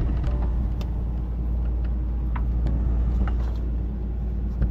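Fishing boat's inboard diesel engine running steadily with a low, even rumble. A few light clinks of steel plates sound over it, with a sharper knock near the end.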